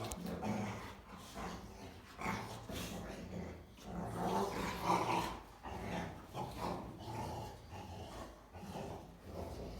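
Rottweilers growling in a run of short, uneven rumbles, the loudest about five seconds in.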